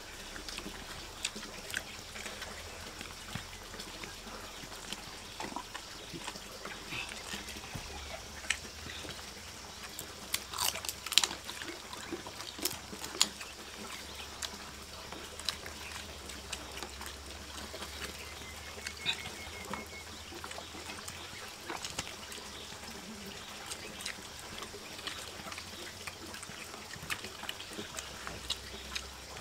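Steady wash of running water, with scattered small clicks and knocks over it.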